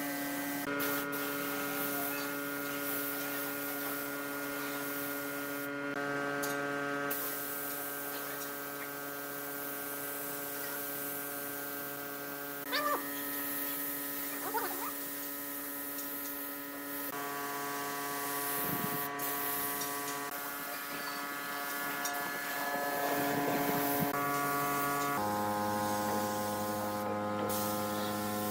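Compressed-air spray gun hissing as it sprays finish, the hiss cutting out briefly a few times as the trigger is released. Under it runs a steady layered hum whose pitch shifts every several seconds, with a couple of light clicks midway.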